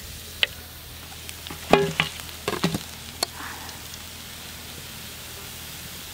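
Hot oil sizzling as oat-coated fish pieces deep-fry. A few sharp metallic clinks and knocks come about two to three seconds in, from the steel wire skimmer working over the pan.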